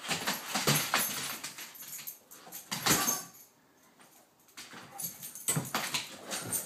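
Great Pyrenees dogs play-fighting: rough, noisy bursts of dog sounds in three spells, over the first second and a half, briefly about three seconds in, and again over the last two seconds.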